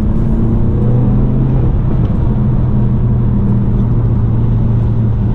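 Engine of a 2017 Volkswagen Golf GTI Mk7 with APR Stage 2 tune, APR intake and APR downpipe, its 2.0-litre turbocharged four-cylinder running steadily under light throttle, pitch rising a little in the first second or so. Under it runs a steady hiss of tyres on a wet road, heard from the cabin with the driver's window down.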